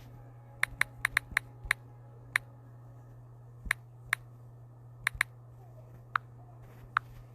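About a dozen short, sharp clicks at uneven intervals: a quick run in the first two seconds, then more spread out. They sound like taps or clicks on a device being operated, over a steady low hum.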